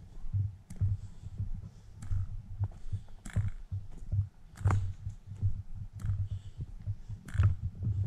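Footsteps of a person walking on a dirt forest trail: dull low thuds at a steady walking pace of about two a second, with scattered sharper crunches and clicks.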